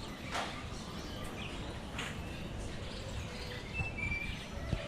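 Birds chirping and calling: short sharp calls about half a second in and again at two seconds, and a brief high whistled note near four seconds, over a steady low background rumble.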